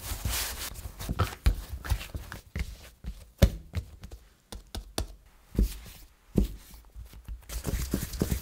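Hands kneading and rounding soft yeast bun dough on a silicone baking mat: irregular soft thumps and pats of dough pressed and turned on the mat, with a few sharper single knocks in the middle.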